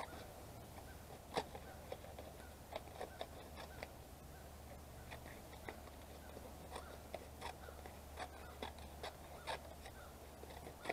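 Scissors snipping cardboard into small pieces: a faint, irregular series of short snips, about one or two a second.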